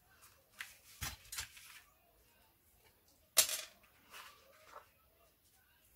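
Cardstock photo frames being handled and pressed flat on a table, with a few light taps and one sharp click about three and a half seconds in.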